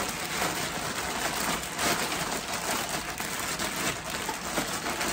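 Zip-top plastic bag crinkling and rustling continuously as chicken wings in marinade are squeezed and turned inside it by hand.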